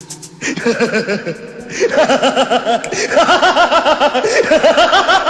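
Laughing ringtone: a recorded voice laughing in quick, repeated ha-ha bursts. It starts suddenly and gets louder about two seconds in.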